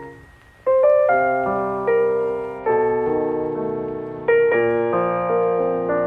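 Background piano music: slow sustained chords, each struck and left to fade, with a short pause about half a second in before the chords resume.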